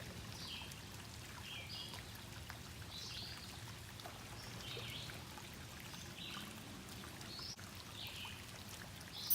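Steady trickle and pour of water at a koi pond, with a small bird giving short high chirps every second or so.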